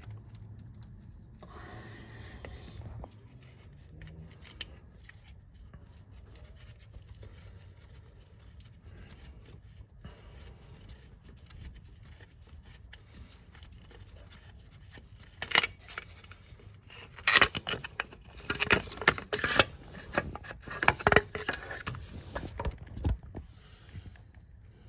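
Metal hand tools clinking, clicking and knocking against engine parts while a timing chain guide rail's bolts are undone. The first half is mostly quiet; a dense run of sharp clicks and knocks starts about two thirds of the way in.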